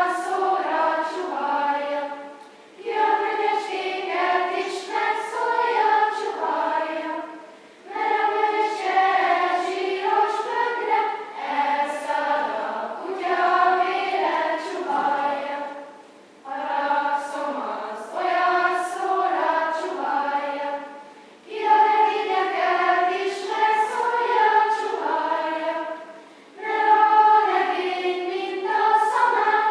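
Children's choir singing under a conductor, in phrases of about five seconds with short breaks for breath between them.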